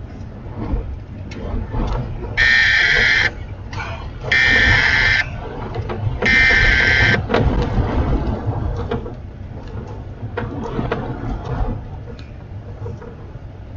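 Three loud electronic alert beeps, each just under a second long and about two seconds apart, over the steady rumble of a vehicle driving through strong wind.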